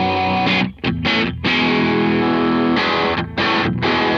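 Baritone Telecaster (Squier Paranormal Cabronita) played through a Jackson Audio Golden Boy overdrive and a compressor: distorted chords ring out, with short breaks about a second in and again past three seconds.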